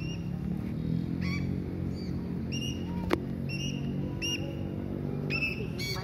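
Alexandrine parakeets calling in flight: short, high, arched calls, about eight of them at roughly one a second, over a steady low hum. A single sharp rising sweep sounds about halfway through.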